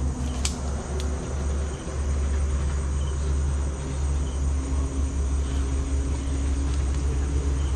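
Crickets and other insects chirring steadily, over a strong low rumble, with two sharp clicks about half a second and a second in.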